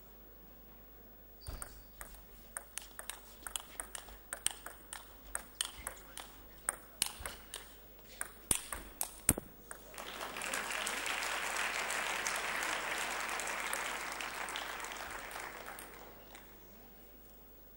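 Table tennis rally: the ball clicking sharply and quickly off the bats and table for about eight seconds, then the crowd applauding the point for about six seconds, fading out near the end.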